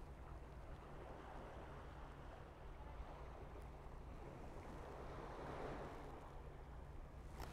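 Faint wash of sea waves on the shore over a low wind rumble, swelling a little about five seconds in.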